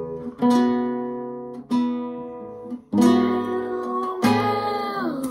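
Acoustic guitar music: chords struck a few times and left to ring, with a note sliding down in pitch near the end.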